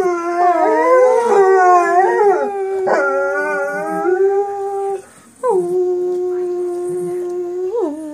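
Shar Pei mix dog howling: one long howl that wavers up and down in pitch for about five seconds, a brief break, then a second, steadier howl that falls away near the end.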